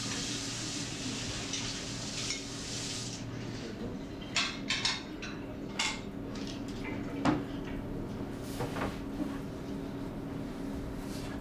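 Water running from a kitchen tap stops abruptly about three seconds in. Then dishes and cutlery clink and clatter on the counter in a string of sharp knocks, the loudest about seven seconds in.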